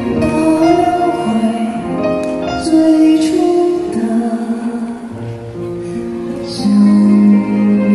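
Music: a male singer's high voice singing long held notes over instrumental accompaniment.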